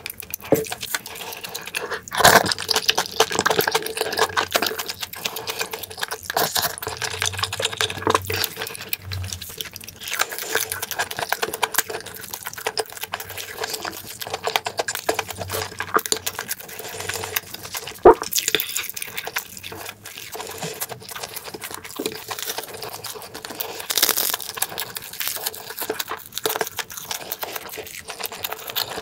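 Close-miked wet chewing and mouth sounds of a person eating tuna kimchi stew and pan-fried sausage and crab-stick pancakes, a rapid run of small smacks and squishes. A sharp click about two-thirds of the way through.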